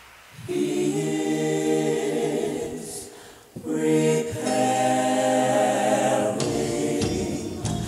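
Gospel music opening with sustained choir-style vocal harmony, held chords that start about half a second in, break off briefly about three and a half seconds in, then resume.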